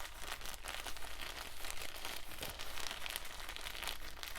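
Cotton pads being handled close to the microphone: a continuous soft crinkling and rustling made of many fine crackles.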